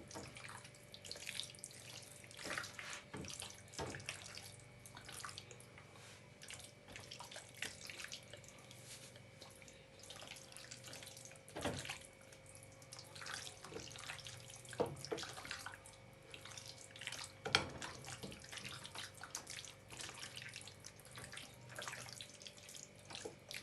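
Hand mixing raw chicken wings in an oily marinade, with irregular wet squishing.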